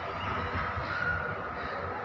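Steady outdoor city ambience: a low rumble of traffic with faint, distant voices.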